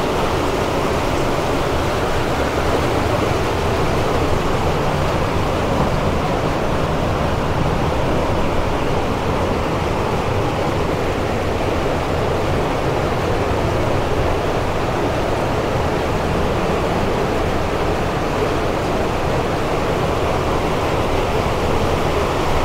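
Water rushing steadily and loudly along a channel beneath a wooden boardwalk inside a narrow rock tunnel.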